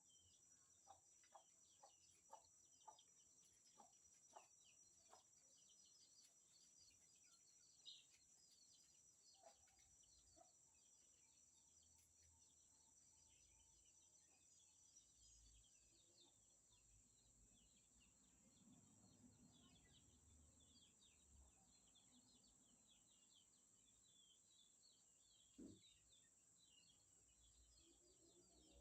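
Faint outdoor nature ambience: a steady high insect drone under many short, high chirps. A run of short pips at about two a second sounds in the first five seconds.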